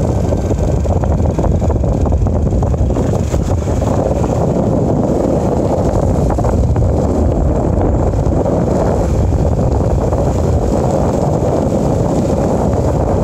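Wind buffeting the microphone while riding along a road: a steady, dense low rumble.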